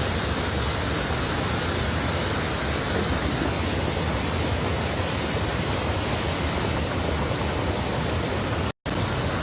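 Steady rushing of water, an even roar that cuts out for an instant near the end.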